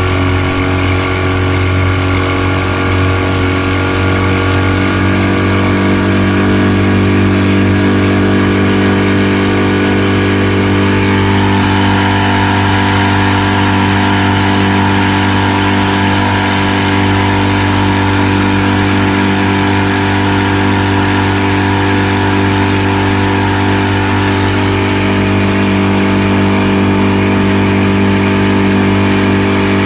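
1970 Mercury 20 hp outboard's two-cylinder two-stroke engine running steadily. Its speed changes a few seconds in and again about eleven seconds in.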